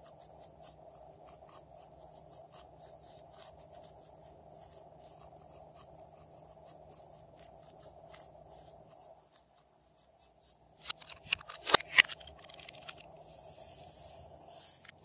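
Fingertips rubbing glitter over a glue base in a glass bowl, a faint scratchy ticking. About eleven seconds in, a few sharp plastic clicks as a small plastic case is handled and opened. Then a faint high hiss of glitter pouring out of the case.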